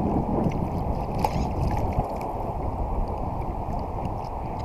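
Wind and choppy lake water heard from aboard a small model sailboat: a steady rushing of wind on the onboard microphone, with water splashing against the hull.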